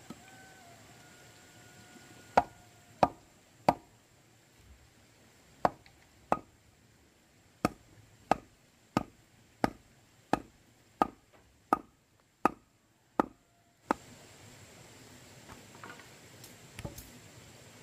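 A run of sharp blows on wood, about one and a half a second: a few strikes, a short pause, then about ten more in a steady rhythm that stops suddenly.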